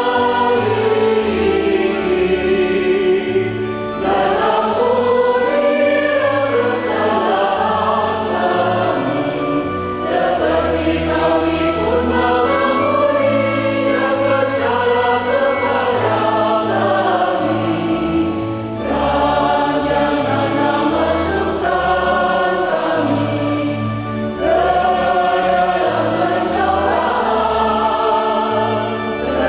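A mixed church choir singing a hymn in harmony over sustained low organ notes, in phrases that breathe every few seconds.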